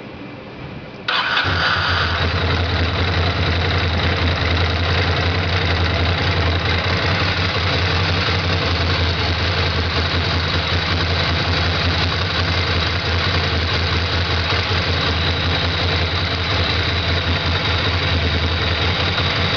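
Ducati Monster 620's air-cooled two-valve L-twin engine starting about a second in, then idling steadily. It is run to circulate the fresh oil just put in during an oil change.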